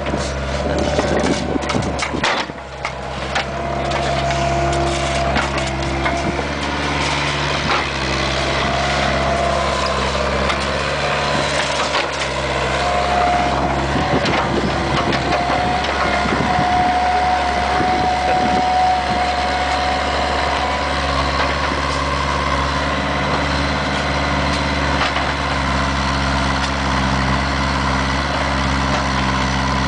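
Bobcat 430 ZHS mini excavator's diesel engine running steadily under load as it rips up asphalt, with a hydraulic whine that shifts in pitch. Knocks and cracks of breaking asphalt come in the first few seconds.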